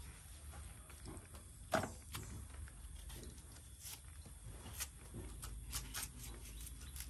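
A large knife chopping and scraping at a fibrous, hairy root clump, in irregular sharp knocks: one strong chop about two seconds in, then a quicker run of cuts from about four seconds.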